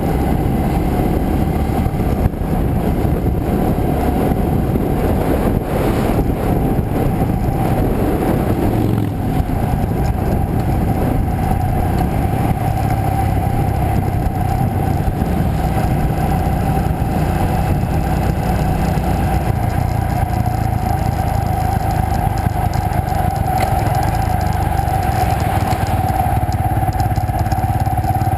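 Motorcycle riding at street speed, its engine running steadily under heavy wind noise on the microphone, with a steady whine throughout. The engine note drops briefly about six seconds in.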